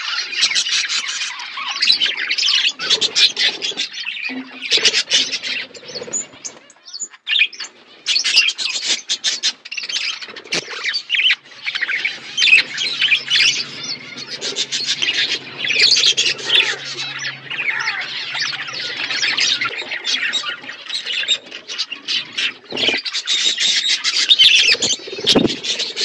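A flock of budgerigars chattering and warbling without pause, a dense mix of quick chirps, squawks and short clicks.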